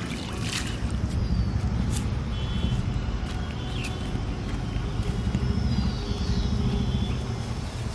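A splash of water flung from a metal bowl about half a second in, over a steady low rumble, with a few light clicks after.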